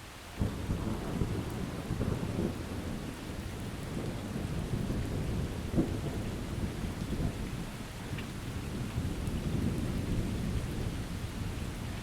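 A thunderclap breaks about half a second in and rolls into a long, low rumble with a few sharper cracks, over steady rain.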